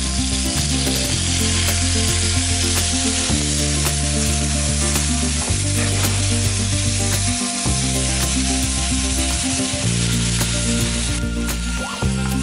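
Red wine hitting a hot carbon steel frying pan of chicken, sizzling and hissing steadily as it boils off in steam, deglazing the pan.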